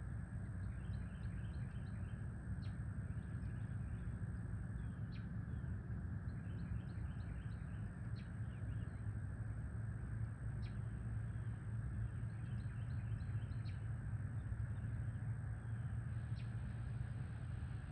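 Birds chirping faintly in quick runs of short high notes, repeated every second or two, over a steady low rumble of outdoor ambience.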